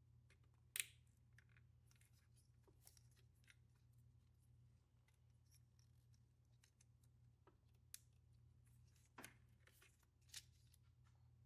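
Near silence under a faint low hum, broken by a few short sharp clicks of plastic electrical connectors and wiring being handled and pushed together; the sharpest click comes about a second in, with others near the end.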